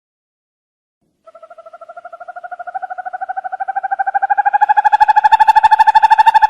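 Owl giving a rapid, even trill, starting about a second in, slowly rising in pitch and growing steadily louder.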